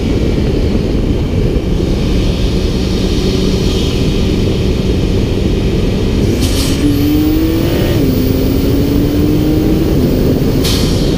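Nissan GT-R R35's twin-turbo V6 under a heavy rushing noise, running steadily and then accelerating about six and a half seconds in, its pitch rising and dropping sharply at two upshifts, about eight and ten seconds in. Two brief hissing bursts cut through.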